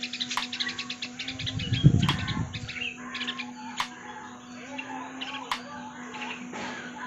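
Bulbuls chirping: a busy run of short, high chirps, with a low thump about two seconds in.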